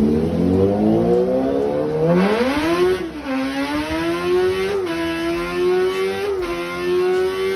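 Motorcycle engine accelerating: its pitch climbs steadily for about three seconds, drops once, then holds steady at high revs with two brief blips, starting and stopping abruptly.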